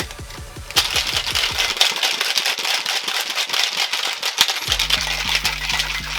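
Ice rattling inside a cocktail shaker as it is shaken hard, a fast, even clatter starting about a second in, over background music with a steady beat.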